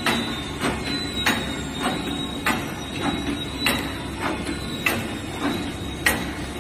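Automatic four-row wet wipe packaging machine running: a regular clacking of its sealing and cutting mechanism, about three strokes every two seconds with lighter clicks between, over a steady high whine and a low hum.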